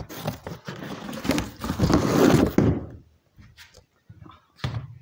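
Stainless steel stove pipe sections being handled: scraping and rustling for about two and a half seconds, then a few light knocks.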